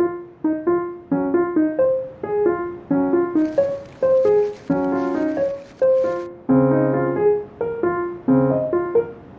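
Background music: a piano playing a light, bouncy melody in short struck notes, with deeper bass chords joining about two-thirds of the way in.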